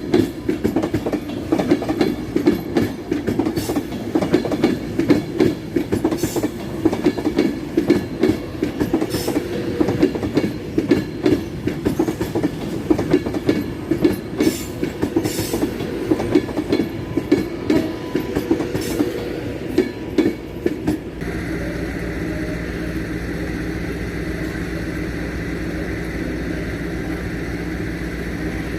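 A train passing on the rails, its wheels clattering over the rail joints in a quick, irregular run of clicks over a steady rumble. About 21 seconds in the sound cuts abruptly to a steady engine hum with a high whine.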